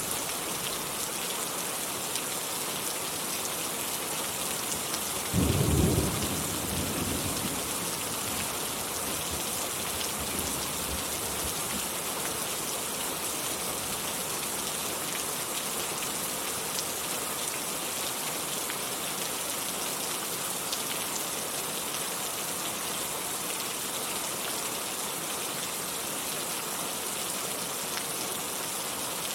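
Steady heavy rain hissing, with a clap of thunder about five seconds in that rumbles away over a few seconds.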